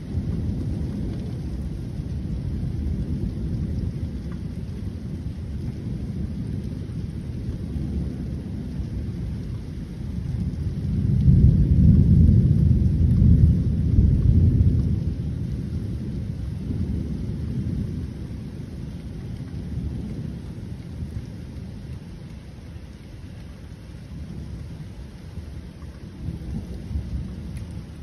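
Thunder rumbling on and on in low rolls, swelling to its loudest for a few seconds about halfway through, then dying back to a softer grumble.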